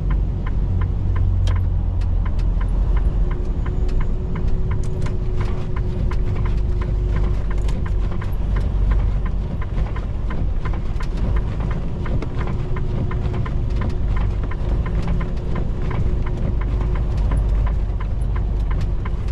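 Steady low rumble of a semi-truck driving at speed, heard from inside the cab, with frequent sharp ticks scattered through it and a faint steady hum in the middle stretches.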